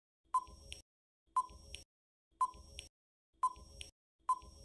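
Quiz countdown-timer sound effect: five tick-tock clicks, one a second, counting down the time left to answer.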